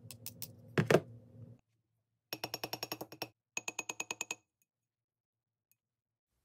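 Small ball-peen hammer tapping a straight razor's pivot pin against a steel block, peening it over: two quick runs of about ten light, ringing metal taps each. A couple of louder knocks come about a second in, before the tapping.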